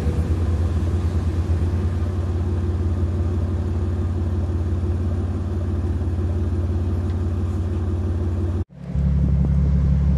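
Ford Taurus V6 idling steadily, heard at the tailpipe while the exhaust smokes as the Seafoam treatment burns off after its soak. The sound drops out abruptly for a moment near the end, then the same idle comes back.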